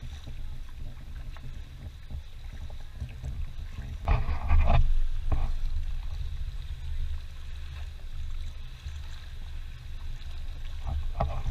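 Muffled low rumble of wind and water on a camera's waterproof housing as a kayak is paddled, with a louder burst of splashing about four seconds in.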